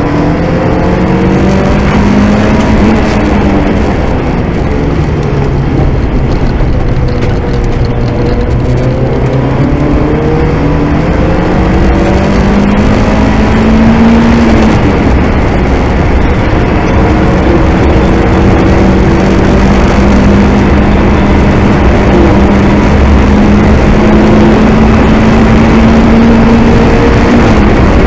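Turbocharged 2.0-litre 16-valve four-cylinder engine of a VW Golf Mk2, heard from on board under hard acceleration on track. The engine note climbs slowly for long stretches and drops sharply in pitch twice, about four seconds in and about halfway through.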